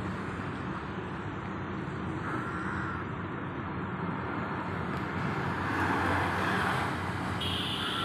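Steady outdoor background noise of road traffic, with a vehicle swelling louder around six seconds in and a brief high tone near the end.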